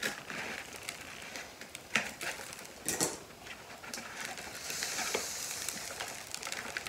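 Brown kraft paper crinkling as it is handled and pulled off a potted plant: scattered sharp crackles, then a longer rustle about five seconds in.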